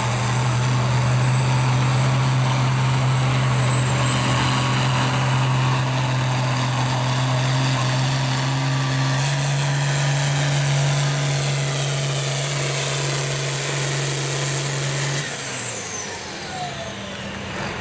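Hot farm class pulling tractor's turbocharged diesel engine running flat out while dragging a weight-transfer sled: a steady drone with a high whine that slowly climbs. About fifteen seconds in the throttle is cut, and the whine falls away as the engine winds down at the end of the pull.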